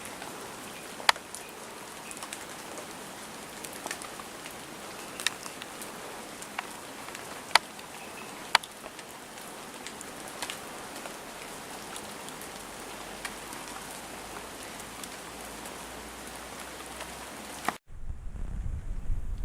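Steady rain falling, with a few single heavy drops striking close by. Near the end the rain sound cuts off abruptly and a louder low rumble takes over.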